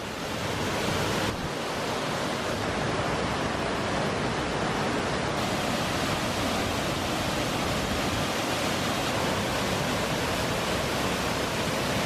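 Steady rush of water from a cascading waterfall pouring into its pool, fading in over the first second.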